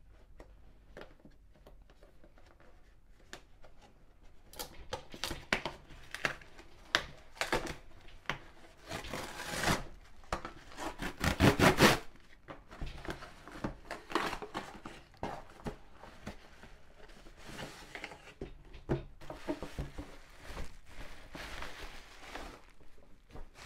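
A cardboard USPS Priority Mail box being torn open and unpacked by hand: irregular tearing and rustling of cardboard and paper, with short knocks of the box against the table. The loudest tearing comes about halfway through.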